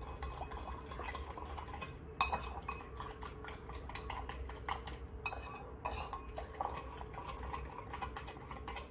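A spoon stirring yeast and sugar into water in a small bowl, with many quick, light clinks against the bowl's sides. This is the yeast being dissolved before it is left to activate.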